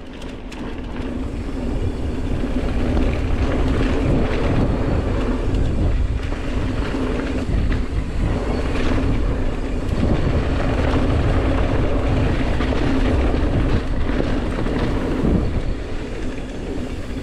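Wind rushing over the camera microphone and mountain-bike tyres rumbling on a dirt trail during a fast downhill run. It builds over the first two seconds and then stays loud and steady.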